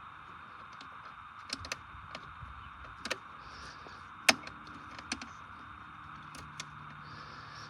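Scattered light clicks and knocks of hand tools and parts being handled, with one sharper click about four seconds in, over a steady hiss.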